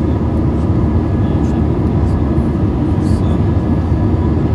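Steady engine and airflow noise of an Airbus A320 airliner in flight shortly after takeoff, heard inside the passenger cabin, with a few faint steady tones in it.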